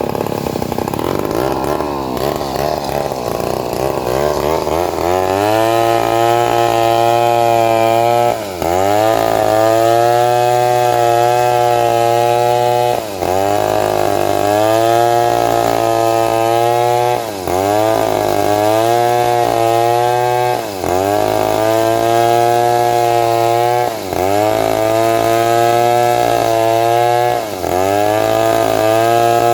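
Chainsaw at full throttle cutting through a large teak log. The engine note is rough for the first few seconds, then steady, sagging briefly about every three to four seconds.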